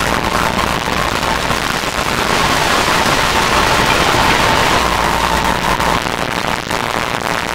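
Noise music: dense crackling static over a low hum and a steady tone, both of which drop out briefly near the end.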